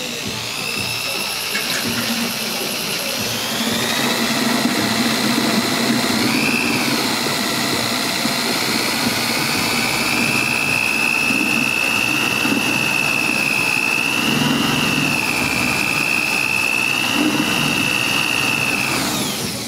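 Corded DeWalt drill spinning an aeration wand in a glass carboy of stout wort, aerating it after the yeast is pitched. The motor gives a steady high whine that picks up speed a few seconds in, with the wort churning and foaming underneath. The drill winds down and stops near the end.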